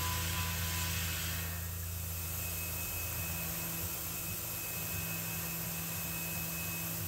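Tormach PCNC 440 CNC mill spindle running steadily while boring into an aluminium block, a low hum with a hiss on top. About a second and a half in the hiss drops and a thin, steady high whine carries on.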